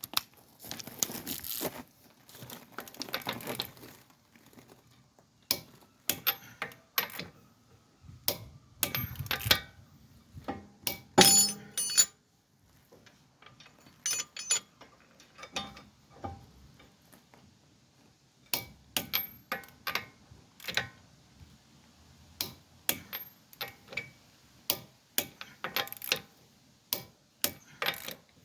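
Metal tools and brake parts being handled: scattered sharp clicks and metallic clinks, with a crinkling rustle near the start and a burst of ringing clinks about halfway through.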